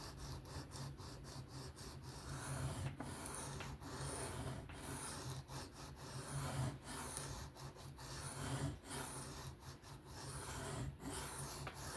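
Knife blade being stroked freehand across a 400-grit sharpening stone: a run of short scraping strokes, broken by brief gaps, as the edge is worked to raise a burr.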